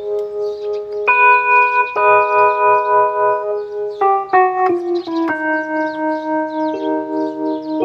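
Novation MiniNova synthesizer playing sustained chords that change about every second, with a steady pulsing wobble in loudness, working normally after repair.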